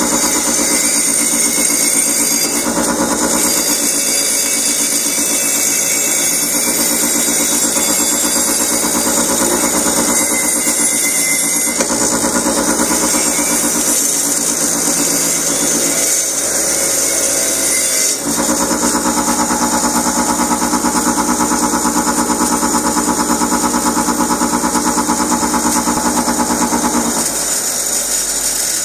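Bench grinder motor running steadily while a diesel heater's stainless burner tube is held against its spinning wire wheel to scrub off soot. The hum dips briefly partway through and drops away near the end.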